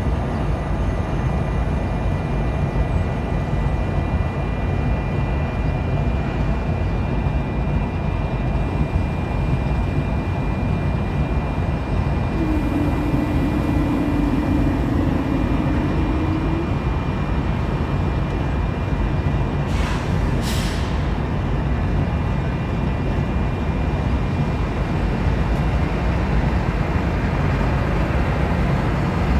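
Diesel freight locomotive idling in a rail yard: a steady low rumble with a faint steady whine over it. About halfway through, a low tone holds for about four seconds. About two-thirds of the way in comes a short hiss of air, typical of the air brakes.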